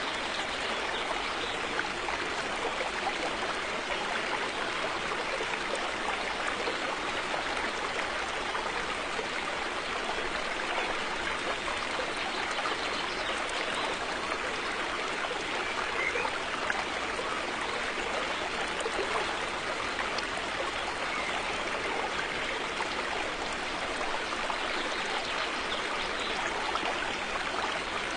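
River water flowing over stones, a steady rushing and trickling.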